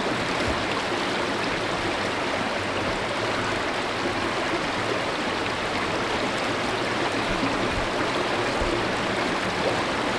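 Creek water rushing steadily down a concrete flume, spilling over a run of rubber flexi-baffles.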